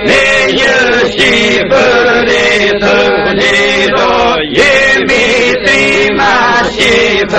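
A group of men singing a slow Albanian patriotic song together, in long drawn-out phrases with short breaks between lines.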